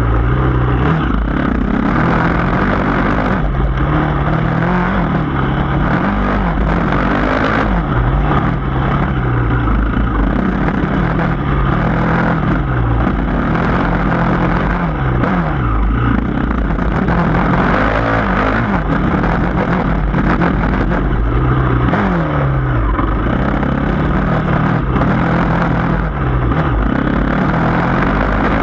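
Yamaha dirt bike engine under throttle on an uphill trail climb, its pitch rising and falling over and over as the rider rolls on and off the gas and shifts.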